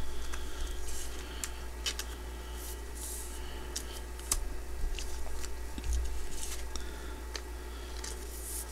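Trading cards being slid into plastic card sleeves: soft, scattered plastic swishes and small clicks.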